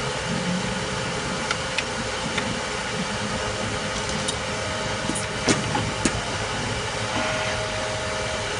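Automatic bar chamfering machine running: a steady mechanical drone with a faint whine, and scattered light clicks and knocks, the loudest two about five and a half and six seconds in.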